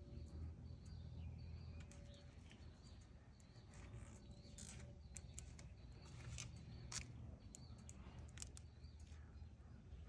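Near silence: faint outdoor ambience with a low hum, a few faint bird chirps and light clicks.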